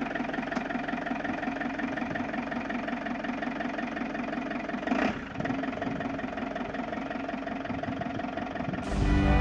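Engine of a Fiat Ducato-based Dethleffs Globetrotter motorhome idling steadily, with a brief louder moment about five seconds in. Music starts near the end.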